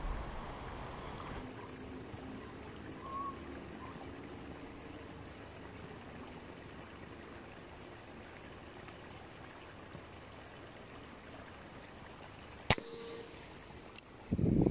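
Steady soft sound of flowing river water; near the end a single sharp click and, under two seconds later, a louder dull thump, from an air rifle being fired at fish in the water.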